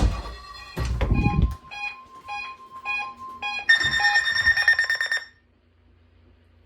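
Weather radio alert test: a steady warning tone near 1 kHz runs under beeps repeating about twice a second, then a harsher buzzing alarm tone sounds for over a second and cuts off suddenly. Low rumbling bursts come in the first second and a half.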